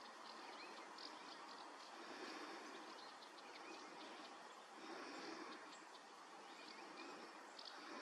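Faint woodland ambience: a steady hiss with insects trilling on and off at a high pitch and a few short, faint bird chirps.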